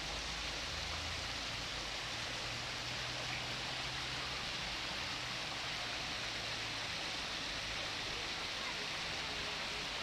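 Steady rush of water pouring and splashing into a koi pond, an even hiss that does not change.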